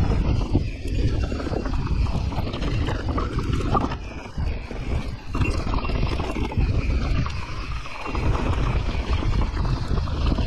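Wind buffeting the microphone of a mountain bike riding a rough trail, with a steady rumble and a dense clatter of small knocks from the tyres and bike over rocks and roots.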